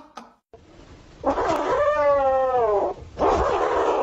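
A domestic cat yowling: one long drawn-out call that falls in pitch at its end, then a second, harsher call near the end.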